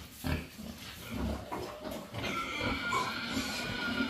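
Pigs grunting in short low grunts, with a steady high-pitched drone coming in about halfway through.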